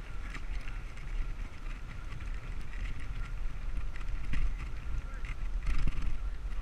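Wind rumbling on the camera microphone of a moving bicycle, with road noise and scattered short clicks and rattles.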